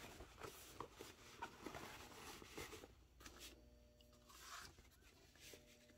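Near silence, with a few faint clicks and rustles.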